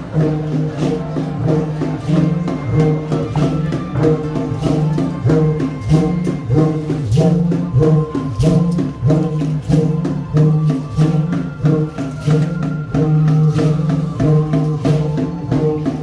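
Upbeat folk-style background music with a steady percussion beat of tambourine-like shakes and strikes over sustained pitched notes.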